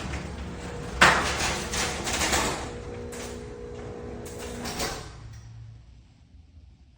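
Garage door opener running and the door rattling along its track, starting with a sharp clatter about a second in. It stops and fades out about five seconds in.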